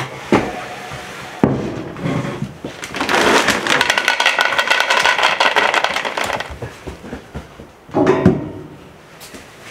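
Dry pet food pellets poured from a paper sack into a plastic bowl: a dense rattle of kibble hitting the bowl for about five seconds, starting a second or so in. A few separate knocks come before and after it.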